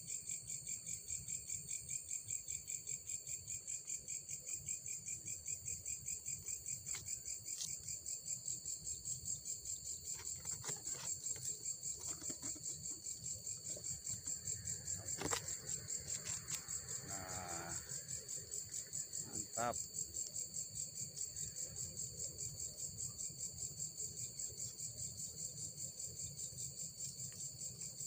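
Crickets and other night insects chirping in a steady, high-pitched chorus that pulses about four times a second. Two sharp clicks come in partway through.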